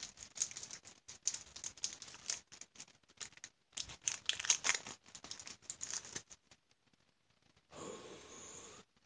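Foil wrapper of a Pokémon TCG Fates Collide booster pack crinkling and tearing as it is ripped open by hand, a run of irregular crackles that stops about six seconds in.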